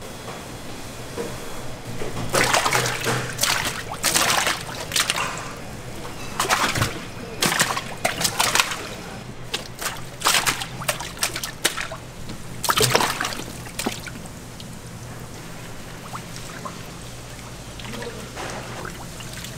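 Water splashing and sloshing in a series of bursts, busiest between about two and fourteen seconds in and quieter after, as chickens are worked in a tub of brining water.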